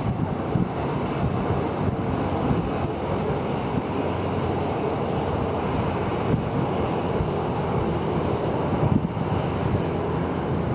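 Steady jet noise from a Boeing 737-800's CFM56-7B turbofans as the airliner flies overhead, with wind buffeting the microphone.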